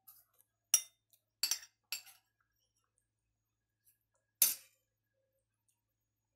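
Metal spoon clinking against a glass plate: a few short clinks in the first two seconds, then a single louder clink about four and a half seconds in.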